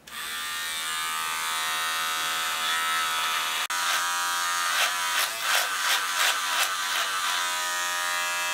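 Corded electric beard trimmer buzzing steadily as it cuts through a full beard. In the second half its tone wavers in quick strokes, about three a second, as it is passed through the hair.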